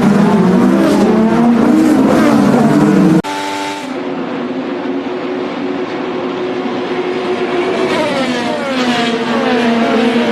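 IndyCar race car engines at high revs passing by. Several cars run together at first, then the sound cuts abruptly to a quieter pass. Near the end the engine pitch falls as cars go by.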